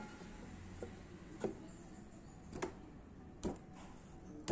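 About five light taps and clicks, a second or so apart, as a Yamaha motorcycle's metal engine side cover is pushed and tapped by hand into place against the crankcase.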